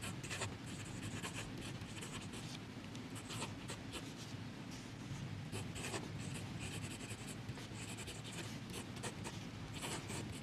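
Fine steel nib of a Parker 51 fountain pen scratching across Rhodia paper in a run of short handwriting strokes, faint and continuous. The nib is fairly rough on paper.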